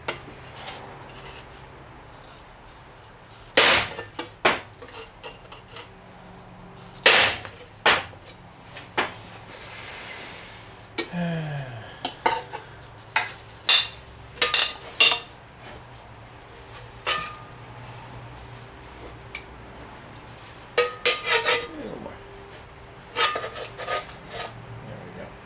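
Steel shovel blade in a vise being beaten with another garden tool to put a crease down its center: irregular metallic clanks with short ringing, a few hard single strikes and quicker clusters of lighter ones, and a scraping slide about eleven seconds in.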